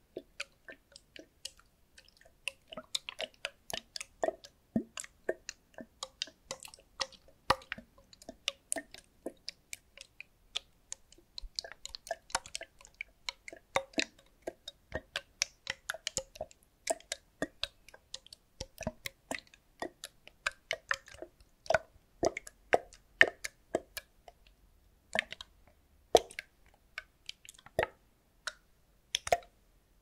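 Water sloshing inside a clear plastic bottle as it is tipped back and forth by hand: quick, irregular plops and gurgles, with a few short pauses.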